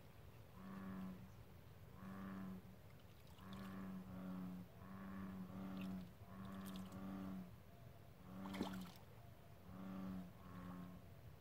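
American bullfrogs calling in a chorus: a steady run of deep, moo-like notes, each under a second long, coming about once a second and often in pairs. A sharp click sounds about eight and a half seconds in.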